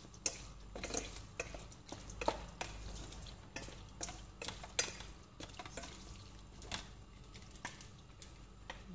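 Wooden spatula stirring raw lamb liver pieces in a stainless steel colander, with irregular scrapes and clicks against the metal. The strokes thin out over the last few seconds.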